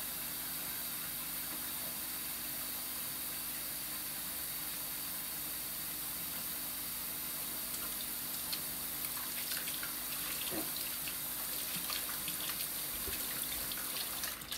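Kitchen tap running in a steady stream into a bowl in a stainless-steel sink, filling it to soak. From about eight seconds in, light ticks and splashes sound over the stream, more toward the end.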